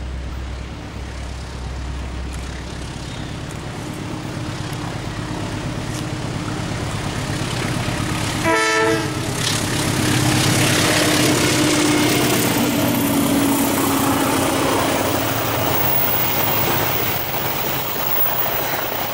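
CC201 diesel-electric locomotive hauling a passenger train as it approaches and passes, the engine and the rolling of the coaches growing louder toward the middle. A short horn blast sounds about eight and a half seconds in.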